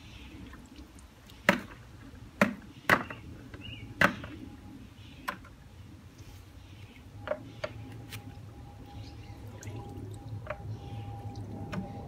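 Pond water sloshing and dripping as a hand net scoops fallen leaves and debris out of a garden pond, with a series of sharp knocks, the loudest four in the first few seconds.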